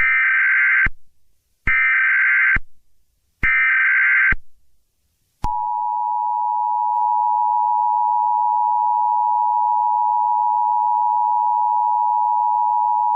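Emergency Alert System tones: three short bursts of the SAME data header, a warbling digital chirp, then the steady two-tone EAS attention signal, which starts about five seconds in and holds.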